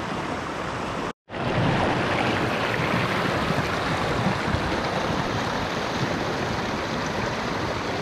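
Mountain creek rushing over rocks and small cascades, a steady rush of water. It drops out for a split second about a second in, then carries on slightly louder.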